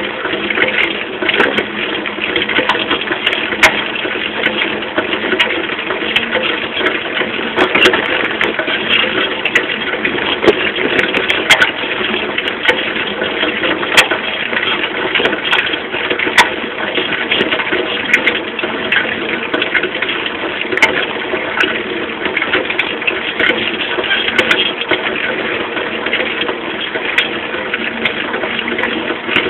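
Small moped being ridden, heard close to its rear wheel: a steady mix of engine, chain and road noise with frequent sharp clicks and rattles from the rear end.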